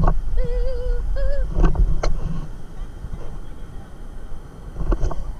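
Low, gusty rumble of wind buffeting the microphone. A high voice briefly sings a wavering, wordless note about half a second in, and there are a few sharp knocks on the camera.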